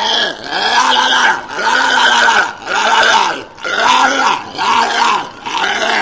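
Walrus calling: a quick run of short, rasping, grunting calls, each rising and then falling in pitch, with brief gaps between them.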